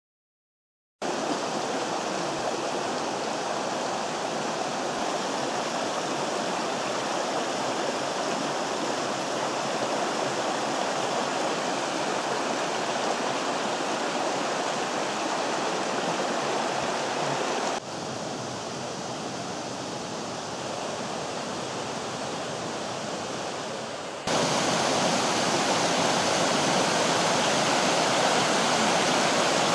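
Mountain stream rushing over rocks and small cascades: a steady rush of water that starts about a second in. A little over halfway through it drops abruptly to a softer rush, and about six seconds later jumps abruptly to a louder one.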